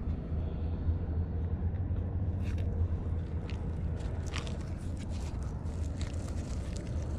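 Dry leaf litter rustling and crackling in short, irregular bursts as a gloved hand digs into the soil and pulls up young mushrooms, over a steady low rumble.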